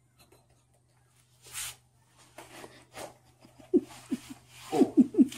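A man shifting his body on a foam yoga mat, with a short breath or rustle about a second and a half in. In the second half comes a run of short vocal bursts from a person, a few tenths of a second apart.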